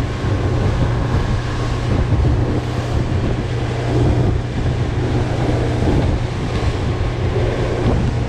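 Boat under way at speed: a 150 hp outboard motor's steady drone under wind buffeting the microphone and water rushing past the hull.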